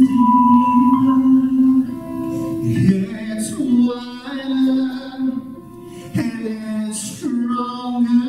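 Slow music with singing: a man singing a melody into a microphone over sustained instrumental accompaniment, with long held notes.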